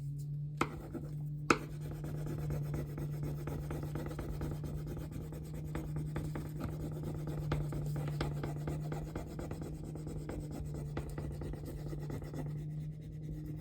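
Scratchy rubbing of a tool on paper, pressing down a rub-on transfer, which the crafter calls an annoying sound. Underneath runs the steady low hum of a lawn mower next door.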